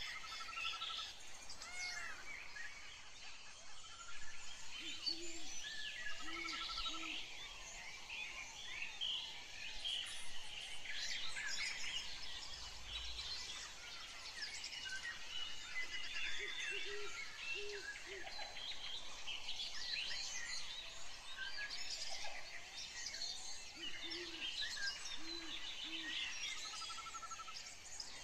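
Many small birds chirping and singing, with a lower call repeated in groups of two or three a few times.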